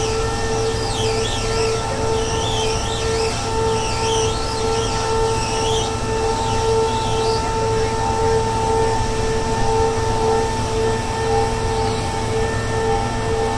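Continuous-flight-auger piling rig running while boring a pile: a steady mechanical drone with a constant whine over a rumble. A wavering high squeal comes and goes through the first half.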